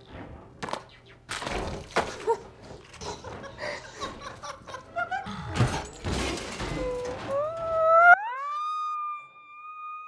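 Film soundtrack playing from the screen: a run of crashes and smashing, breaking impacts, then a sound that rises in pitch and is held steady for about two seconds as the other noise suddenly drops away.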